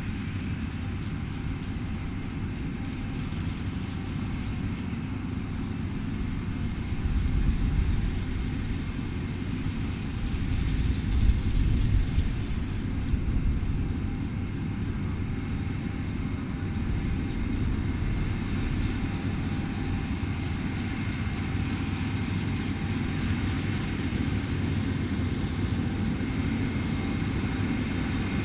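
New Holland CR11 combine harvester running steadily while harvesting barley: a continuous low machinery drone with a faint high whine. Louder low rumbles come about seven and about eleven seconds in.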